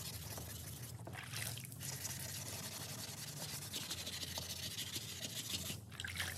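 Hand wet-sanding of body filler on a bumper with sandpaper on a small pad: a steady scratchy rubbing in strokes, with a few short pauses. Near the end, a little water splashing as the hand dips into the bucket.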